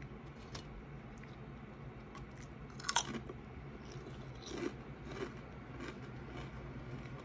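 A person bites into a crunchy, orange-seasoned tortilla chip, with one sharp loud crunch about three seconds in, then chews it with a few softer crunches.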